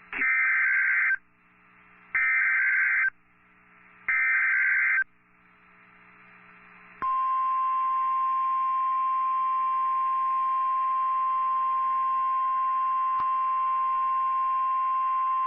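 NOAA Weather Radio Emergency Alert System alert opening: three short bursts of SAME header data, a buzzy digital screech each about a second long and two seconds apart. About seven seconds in comes the steady single-pitched 1050 Hz warning alarm tone, which signals a tornado warning.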